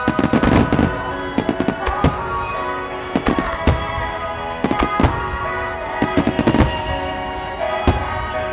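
Aerial firework shells bursting in repeated clusters of sharp bangs and crackles over steady background music.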